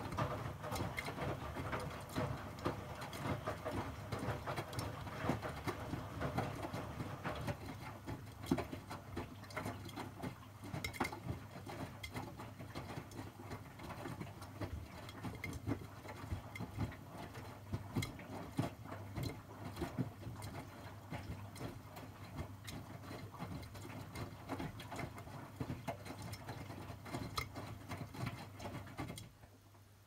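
Miele W2241 front-loading washing machine during a 75 °C cotton wash: the drum turns and the wet laundry tumbles inside it, giving a dense run of small knocks and patter over a low hum, louder for the first several seconds. The tumbling stops abruptly shortly before the end as the drum pauses, leaving only a faint low hum.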